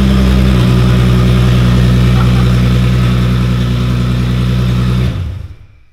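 Volkswagen Golf III's VR6 engine idling steadily just after starting, then switched off about five seconds in, its sound quickly dying away.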